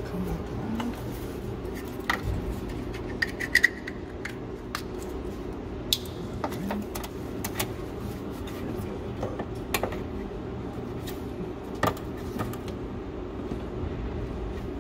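Scattered light clicks, clinks and knocks of parts and wiring being handled while a controller harness is routed and tucked under a car, over a steady low hum; the sharpest pair of clicks comes about three and a half seconds in.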